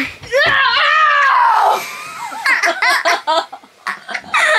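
A girl's high-pitched scream, one long cry falling in pitch, then breathless laughter in short quick gasps from about two seconds in.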